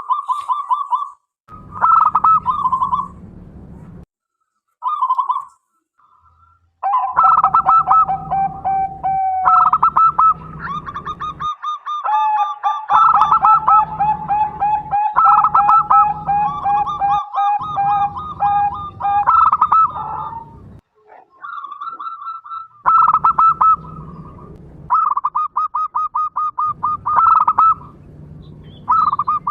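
Zebra doves (perkutut) singing: rapid runs of short, staccato cooing notes, with two birds overlapping for much of the time, one higher and one lower in pitch. This is a lure song, meant to prompt other doves to start singing.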